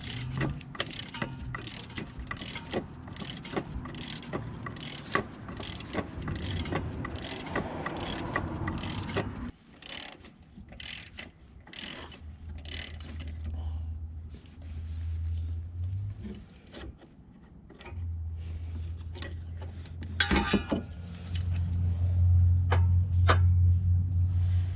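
Socket ratchet clicking in repeated strokes, about two clicks a second, while loosening the power steering pump's mounting bolts. About halfway through the clicks thin out and a low steady hum comes in.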